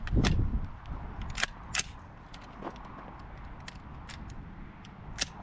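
Handling noise of an AR-15 rifle being shouldered: a dull thump at the start, then a few separate sharp clicks and knocks of the rifle's parts.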